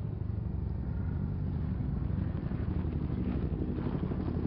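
Armoured vehicle engine running: a low, steady rumble.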